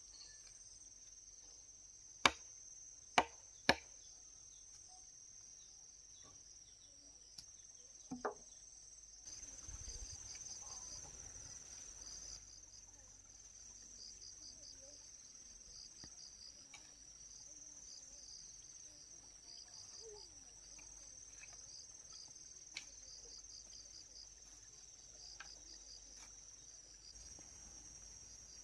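Crickets chirring steadily in a high, even drone. Three sharp knocks come a little over two seconds in, and a softer double knock near eight seconds.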